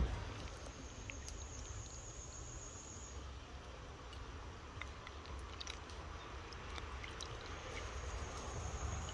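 An insect trilling at a steady high pitch, from about a second in for two seconds and again from about eight seconds in, over a low rumble and a few faint small clicks.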